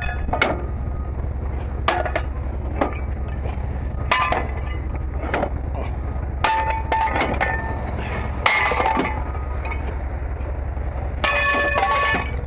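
Scrap metal auto parts clanking as they are handled and tossed onto one another: a series of irregular clanks, several of them ringing briefly. A steady low hum runs underneath.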